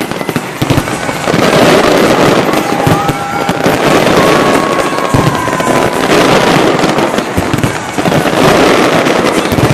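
Large fireworks display going off continuously: dense crackling and many overlapping bangs of shells bursting, with a few thin high tones held through it.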